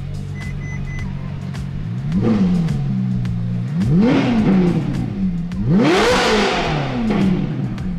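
Ferrari 458 Italia's flat-plane V8, fitted with a RYFT aftermarket exhaust, idling and then revved in three throttle blips about two seconds apart. Each blip rises and falls back to idle, and the last climbs highest.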